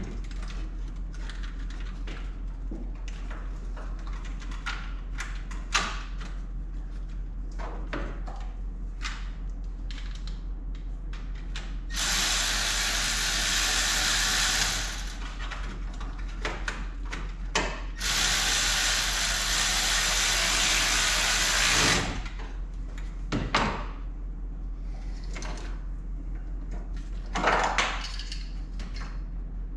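Two steady spells of a power tool running, about three and four seconds long, among scattered small clicks and rattles of parts being handled, over a constant low mains hum.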